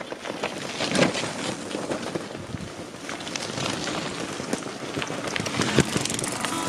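Loaded touring bicycles rolling past over a dirt track: tyres crunching on grit with small clicks and rattles. It swells as a bike goes by, about a second in and again near six seconds.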